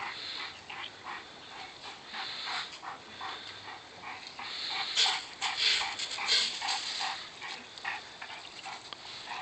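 A dog panting in quick rhythmic breaths, about three a second, a little louder around the middle.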